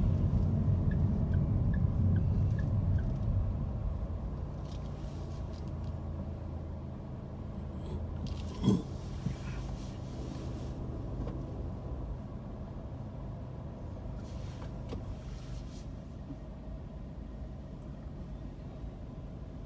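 Low, steady rumble of city road traffic heard from inside a car, louder for the first few seconds and then quieter and even once the car stands still in traffic. A single sharp click about nine seconds in.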